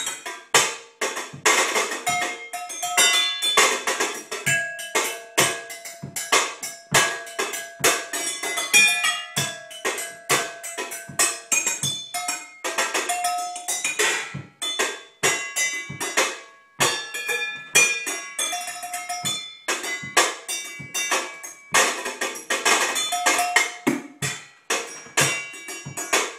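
Pots, pans and bowls struck with butter knives in fast, steady drumming; many strikes leave a short ringing note.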